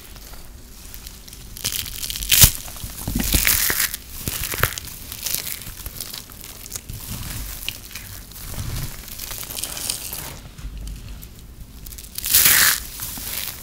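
Hands crushing balls of dry, crispy shredded soap: an irregular crisp crunching and crumbling. There are sharp crunches about two and a half seconds in, a busier stretch just after, and one loud crunch near the end.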